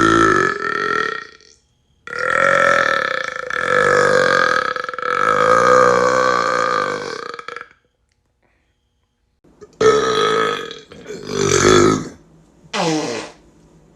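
A man's long, drawn-out burps. One lasts about five seconds. After a short pause come three shorter ones, and the last falls in pitch.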